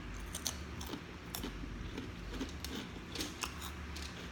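Close-miked chewing with scattered sharp clicks and crackles, about a dozen irregular snaps, over a low steady hum.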